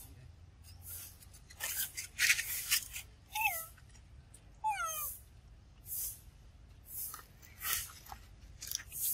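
Pig-tailed macaque eating ripe mango: wet smacking and chewing noises, about one a second. Two short high squeaks, each falling in pitch, come about three and a half and five seconds in.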